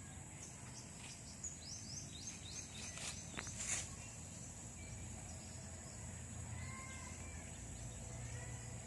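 Rural outdoor ambience: a steady high insect drone, with a run of short, quickly falling bird chirps about one and a half to three seconds in and a brief rustle just after, over a low rumble.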